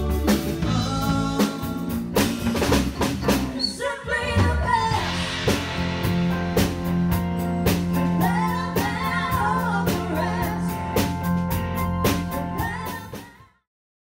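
Live band playing with electric bass, drum kit, keyboards and singing. About four seconds in it jumps to a different song, and the music fades out to silence shortly before the end.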